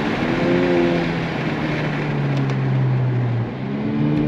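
Modified Honda Accord 2.0T's turbocharged four-cylinder, fitted with a Civic Type R turbo and an aftermarket exhaust, pulling hard on a track lap, heard from inside the cabin. The engine note glides up and then holds. About three and a half seconds in it drops off briefly, then comes back at a higher pitch.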